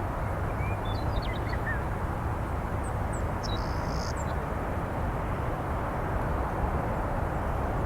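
Steady low rumble of distant jet aircraft engines, with a few short high bird chirps about a second in and again around three to four seconds in.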